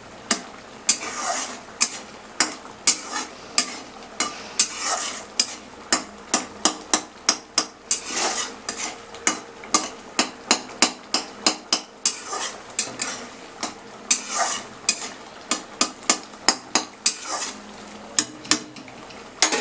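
A cooking utensil stirring thick, sticky chutney in a pan, knocking sharply against the pan about twice a second with scraping strokes between. The chutney is cooking down toward a thick, jelly-like consistency.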